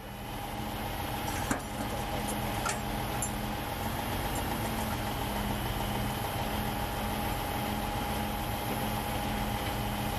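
Heavy-duty tow trucks' diesel engines running at a steady speed with a constant hum, powering the booms that lift an overturned dump truck. A single sharp click about a second and a half in.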